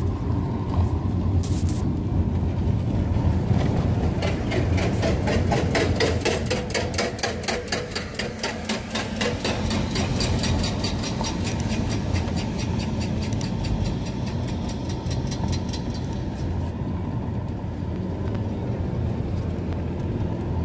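Car engine and tyre noise heard from inside the cabin while driving, a steady low rumble. For most of the time a rapid, even clicking, about four a second, runs over it and stops near the end.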